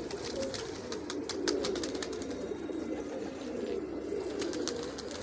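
Pigeons cooing in a continuous low, wavering murmur, with scattered faint clicks.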